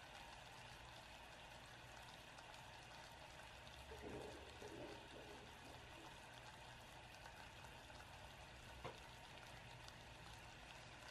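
Sugar syrup boiling in a stainless steel saucepan: faint steady bubbling and crackling as the syrup thickens toward caramel and its bubbles grow larger. A single small click near the end.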